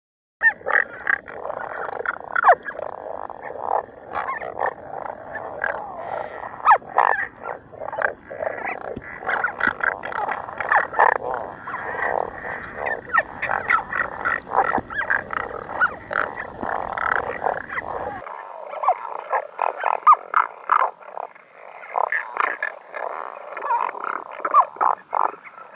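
A loud chorus of many frogs croaking, dense overlapping calls with no pause. About two thirds of the way through, a low background rumble drops out and the croaking carries on.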